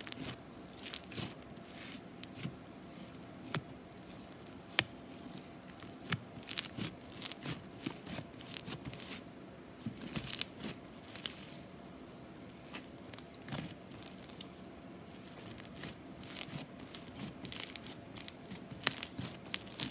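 Bubbly slime squished and worked close to the microphone: an irregular run of crackles, pops and sharp clicks as the air bubbles trapped in it burst.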